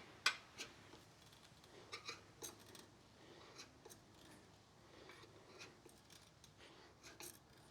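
Faint, scattered clicks and light scrapes of metal tire levers against the wheel rim while a motorcycle tire bead is being levered on by hand.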